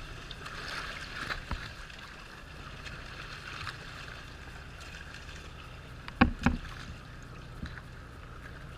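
Sea water sloshing and splashing against a camera held at the surface. About six seconds in come two sharp knocks a fraction of a second apart.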